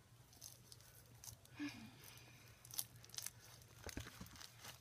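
Pink slime mixed with foam beads being stretched and squeezed by hand, giving faint scattered crackles and pops that come thicker in the second half.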